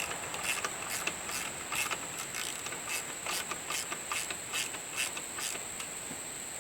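Socket ratchet clicking in quick, irregular strokes as a 12 mm socket turns the adjuster to tension a new alternator and power steering belt. The clicks stop near the end, leaving a steady high hiss.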